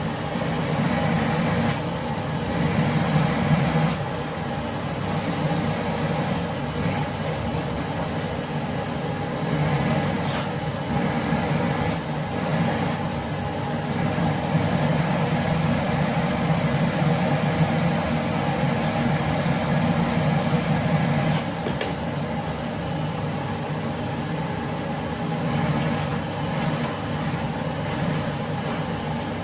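Vacuum cleaner running steadily under heavy suction: a continuous motor drone and rush of air with a faint high whine, gently swelling and easing every few seconds.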